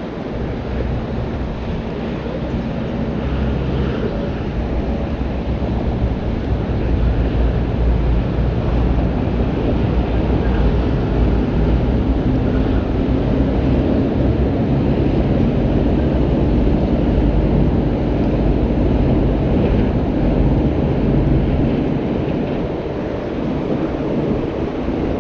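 Wind buffeting the microphone outdoors: a loud, steady low rumble with a faint hum underneath.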